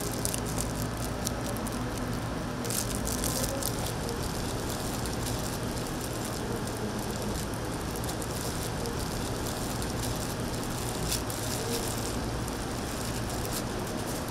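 Gloved hand mixing mayonnaise dressing into shredded imitation crab sticks in a stainless steel bowl: wet squishing and crinkling of a disposable plastic glove, with irregular clicks, over a steady low kitchen hum.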